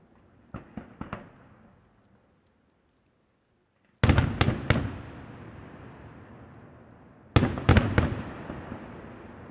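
Fireworks display: aerial shells bursting in quick salvos of sharp bangs. A few fainter bangs come about half a second in, then a loud cluster of four or five reports about four seconds in and another near the end, each trailing off in a long fading rumble.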